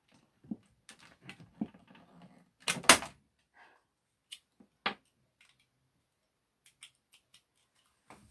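Handling noise: scattered clicks and knocks as the recording phone and its light are moved and reconnected, with the loudest clatter about three seconds in and a sharp knock near five seconds, then a few light ticks.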